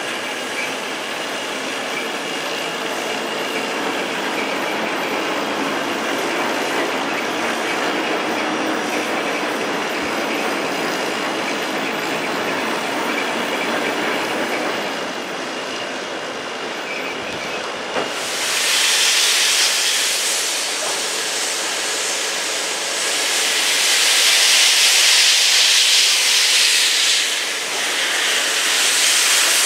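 A locomotive turntable carrying a class 50 steam locomotive turns with a steady mechanical rumble. It is cut off about two-thirds in by loud steam hissing from the locomotive's open cylinder drain cocks, in three long blasts.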